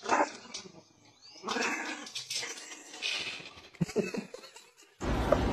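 Dogs barking and snarling in several harsh bursts, stopping after about four seconds.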